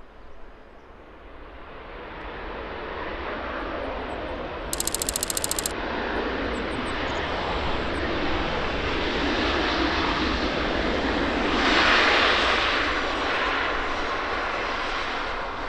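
Jet airliner's engines on final approach, the roar growing steadily, loudest about twelve seconds in, then easing slightly. A brief burst of rapid ticking about five seconds in.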